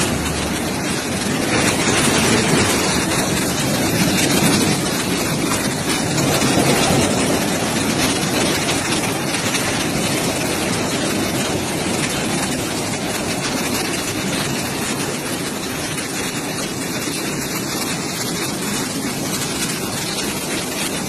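Floodwater rushing in a flash flood: a loud, steady noise of fast-flowing water, slightly louder in the first few seconds.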